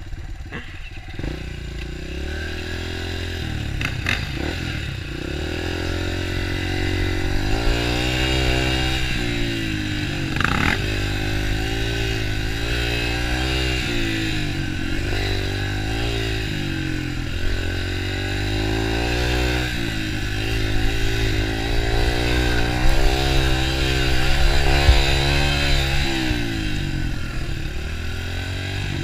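Dirt bike engine running under way, its revs rising and falling again and again as the throttle opens and closes.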